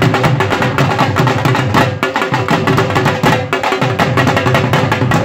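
Punjabi dhol drum beaten in a fast, driving rhythm: rapid sharp strokes several times a second over deep low strokes.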